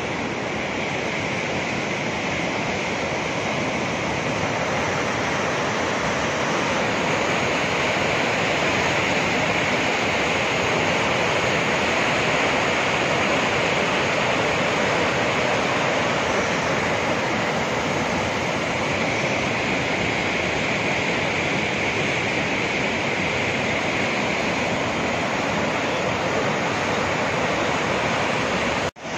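Steady rushing of a river in flood, fast muddy water churning and surging without a break.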